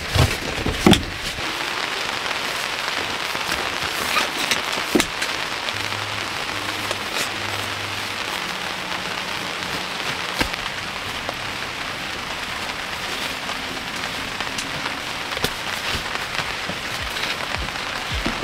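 Steady rain falling, with a few sharp knocks and thumps from things being handled in the car's back seat.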